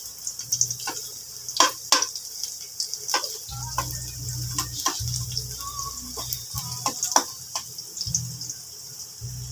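Onion and garlic frying in hot oil in a pan: a steady sizzle broken by scattered sharp clicks.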